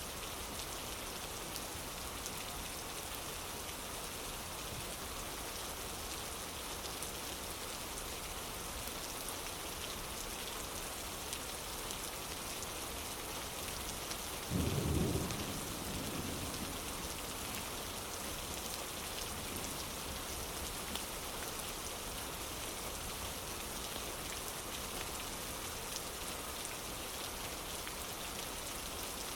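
Steady rain falling, with one short, low rumble of thunder about halfway through that is the loudest moment.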